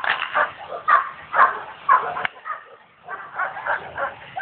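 Dog barking in a run of short, sharp barks, with a pause of about a second midway before the barking starts again.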